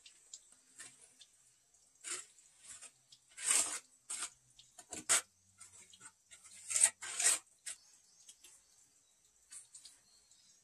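Bricks and cement mortar being scraped and rubbed as bricks are laid. About half a dozen short, rough scrapes come in a loose run, the longest about three and a half seconds in and the loudest pair about seven seconds in, over a faint steady high hiss.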